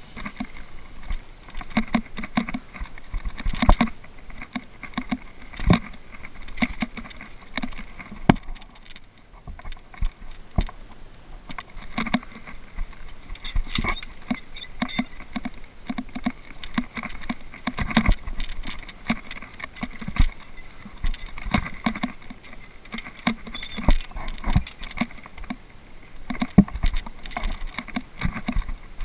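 Irregular knocks, scrapes and clinks of a climber's gloved hands and boots on granite and on a fixed steel chain, picked up close by a body-worn camera.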